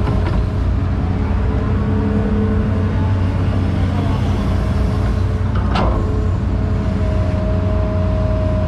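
Hydraulic excavator's diesel engine running steadily under load in the cab while the machine digs and swings, with a hydraulic whine over it. There is a single sharp knock about six seconds in.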